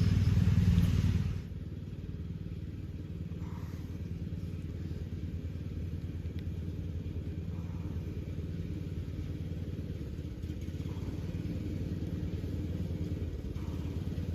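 Lawn mower engine running steadily with a fast, even pulse; louder for about the first second and a half, then quieter and even.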